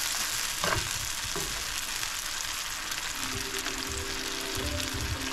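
Vegetables sautéing in a hot pan, sizzling steadily, with soft low knocks in the second half.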